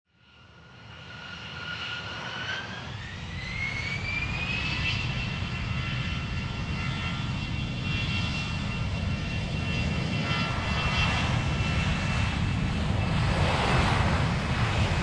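Jet airliner engines spooling up. A whine rises in pitch over a few seconds and then holds steady over a low rumble, fading in at the start and growing louder throughout.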